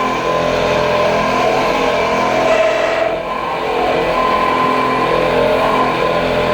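BT30-spindle CNC milling machine running a cut, a steady high tone from the spindle and cutter with a wavering tone beneath it.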